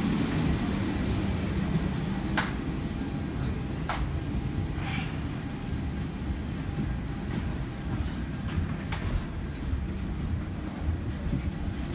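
Steady low rumble of the Denver airport people-mover station, easing slightly after the start, with a few scattered sharp clicks.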